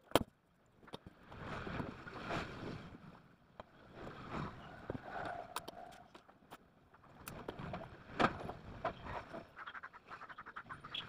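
Cotton fabric being handled and slid across a table, rustling in irregular patches with scattered light clicks and taps; a sharp click sounds just after the start.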